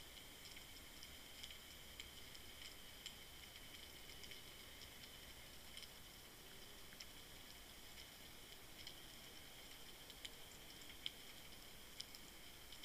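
Near silence underwater: a faint steady hiss with scattered small irregular clicks and ticks, a few sharper clicks near the end.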